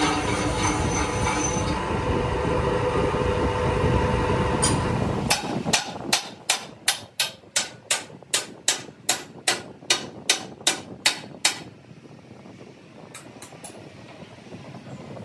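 A large lathe runs with a truck rim spinning in its chuck, a steady mechanical noise with held tones. After about five seconds it gives way to a run of sharp hammer blows on steel, about three a second for some six seconds, then only a few faint taps.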